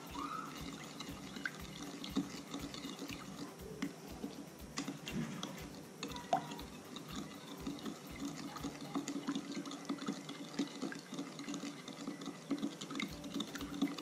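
Wooden spoon stirring a runny egg, melted-butter, sugar and water mixture in a glass bowl: soft liquid sloshing with many small irregular taps of the spoon against the glass.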